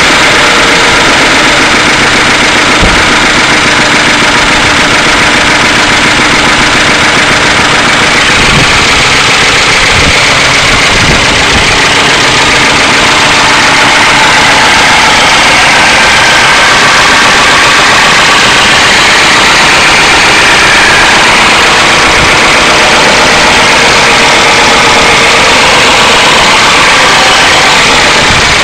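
1992 Ford Crown Victoria's 4.6L V8 idling steadily just after starting, making the abnormal engine noises that the owner suspects come from low oil pressure.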